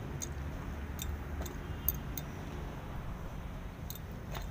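Steady low rumble of air-conditioning plant machinery, with a few scattered light clicks.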